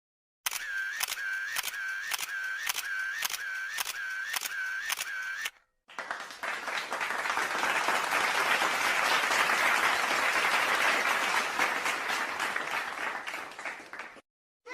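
A rapid run of sharp clicks, about two and a half a second, for about five seconds. After a brief break comes a long burst of applause that swells and then fades out.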